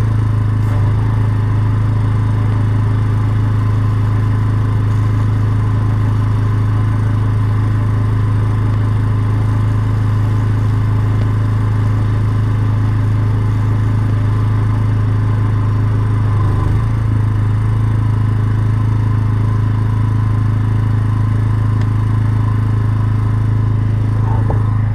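Drain jetting machine's engine running steadily at a constant low pitch, the jet not spraying.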